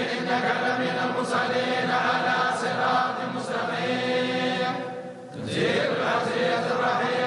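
A group of tolba (Quranic students) chanting a religious recitation together in unison, with a short break about five seconds in before the chant resumes.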